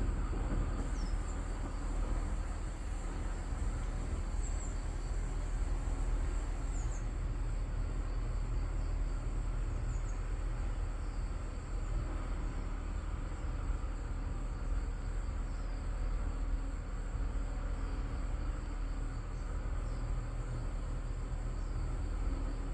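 Korean native honeybees buzzing steadily around the entrance of their hive, over a steady low rumble. A thin, steady high insect drone runs underneath, with a few short high chirps here and there.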